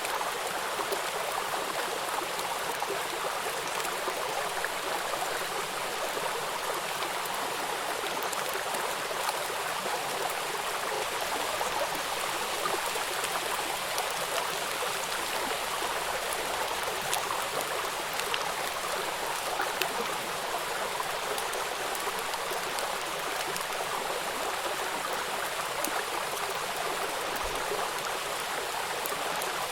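Steady running water of a small stream, an even, unbroken splashing.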